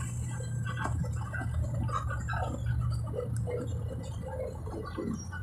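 Steady low drone of a city bus's engine and road noise, heard from inside the moving bus, with faint scattered noises over it.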